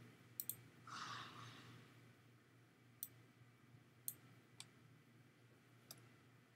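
A handful of sharp computer-mouse clicks, spaced irregularly: a quick double click just after the start, then single clicks a second or so apart, over a faint steady hum.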